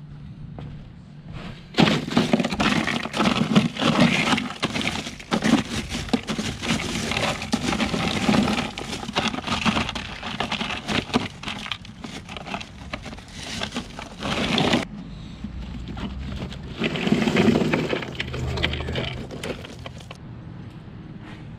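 Crushed ice crunching and clinking inside a plastic cooler as a gloved hand digs through it, starting about two seconds in. It is a long stretch of dense crackle and sharp clicks, then stops briefly and comes back for a few seconds near the end.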